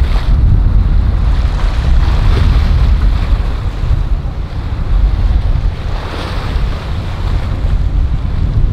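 Wind buffeting the microphone over the steady rush of water from a Pershing 88 motor yacht's wake as it passes at speed.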